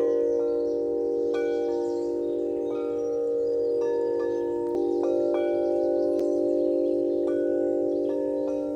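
Wind chime ringing: its tubes are struck at uneven intervals at several different pitches, and the tones overlap into a continuous, lingering chiming.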